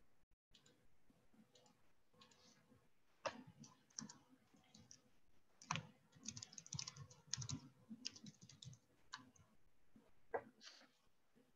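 Faint, irregular clicking and tapping of typing on a computer keyboard, in scattered flurries.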